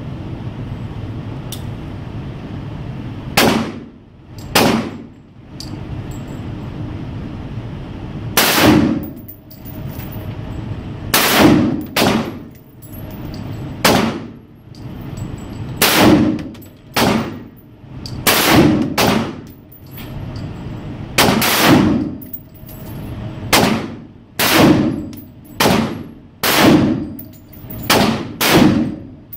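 M16 rifle firing about twenty single shots in an indoor shooting range. The shots start a few seconds in and come at uneven gaps of roughly a second, with a steady low hum between them.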